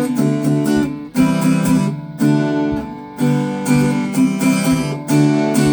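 Baby Taylor small acoustic guitar, freshly strung with Elixir 80/20 strings, strummed in chords. A sharp new strum comes roughly every second, and the chord rings on between strums.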